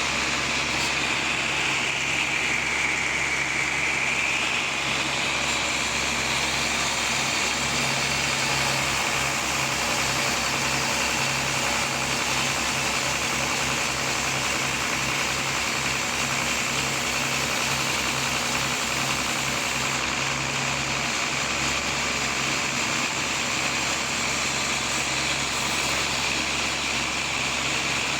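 Sawmill saw cutting a large teak log: a steady, loud mechanical noise over the hum of the machine's engine. The hum pulses in the middle, and a high whine dips in pitch briefly a few seconds in.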